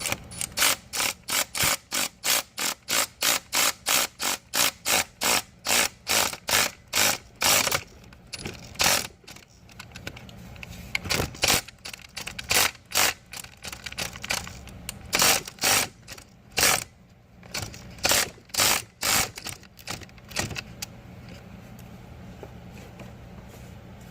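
A hand ratchet clicking in steady runs of about three clicks a second for the first eight seconds, then in shorter runs with pauses, as it turns a drill bit down a stripped head-bolt hole in the engine block to cut it out for a thread-repair insert.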